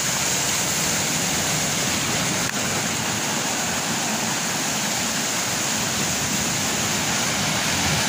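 Sea surf breaking on the shore: a loud, steady rush of water noise with no separate wave surges.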